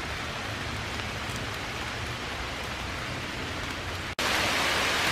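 Hard rain falling on the woodland canopy and leaf litter: a steady, even hiss that cuts out for an instant about four seconds in and comes back louder.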